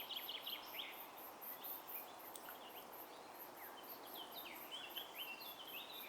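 Faint outdoor ambience: small birds giving short, quick falling chirps, over a steady high insect pulsing of about three or four beats a second.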